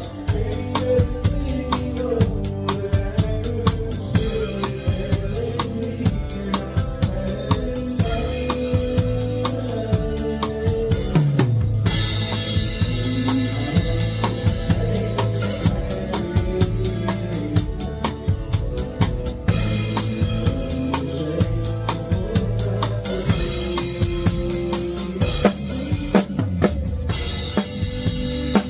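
A live country band playing, with the drum kit close and dominant. Steady snare backbeat, bass drum and rimshots are struck with Ahead Crossroads XRS synthetic drumsticks, over bass guitar and other instruments.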